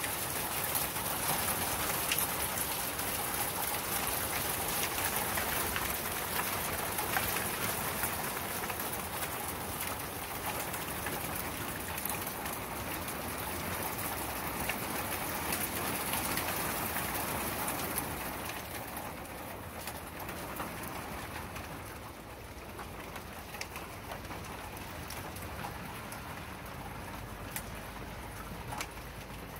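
Hail mixed with rain falling on a wooden deck: a dense patter of small hailstone ticks over a steady rain hiss. It eases a little about eighteen seconds in and keeps going.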